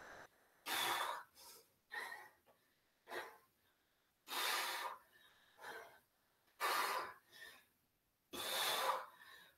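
A woman breathing hard from exertion during dumbbell squats: four strong, forceful exhales with quieter breaths between, and near silence in the gaps.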